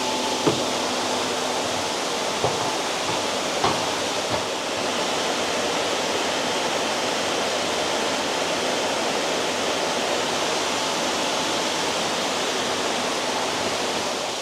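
Steady rush of running water, as at a koi farm pond, with a few faint knocks in the first few seconds.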